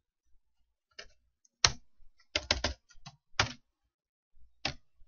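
Computer keyboard keys pressed in scattered single strokes, with a quick run of four presses about two and a half seconds in.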